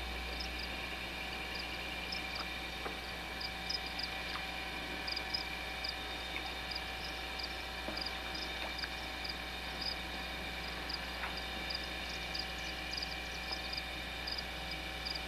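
Swamp chorus of frogs and insects calling at dusk: many short, high chirps repeating several times a second over a steady, even background of calling.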